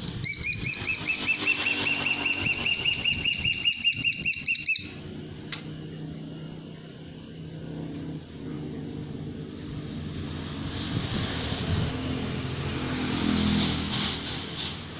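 Golden eagle calling: a rapid run of thin, high, whistled yelps, about four and a half seconds long, rising in pitch at the start. It is followed by a low, steady background rumble.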